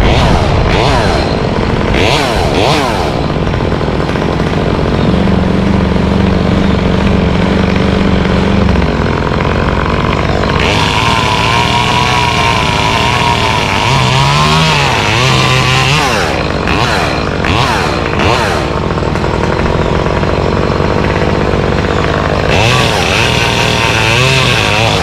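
Gas chainsaw running and cutting through mango wood, its engine revving up and down over and over. A steady lower engine hum joins for a few seconds about five seconds in.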